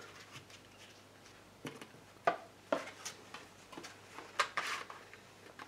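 A few faint clicks and knocks of small objects being handled, with a brief rustle about four and a half seconds in.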